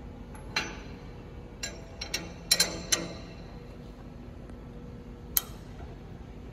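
Metal clinks and clicks of a spanner on the steel fittings of a hydraulic tank unit. A cluster of sharp clinks comes between about one and three seconds in, and one more about five seconds in.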